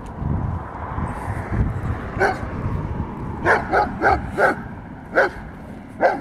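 Giant schnauzer puppy barking: about seven short barks starting about two seconds in, four of them in quick succession in the middle.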